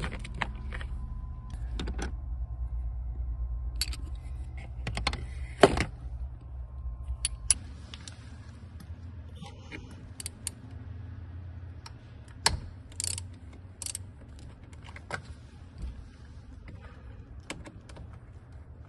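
Scattered metallic clicks and clinks of a Torx bit socket being taken from a socket set and fitted and turned on screws at the back of a steering wheel, over a low hum that drops away after about eight seconds.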